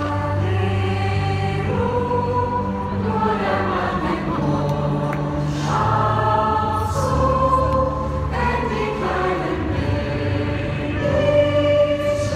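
A choir singing a slow lullaby, long held notes changing every second or two over a low, steady accompaniment.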